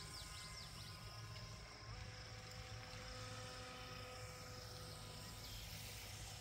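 Proboat Jet Jam 12-inch RC jet boat running flat out across the water: a faint, steady electric motor and jet-pump whine that steps up in pitch about two seconds in.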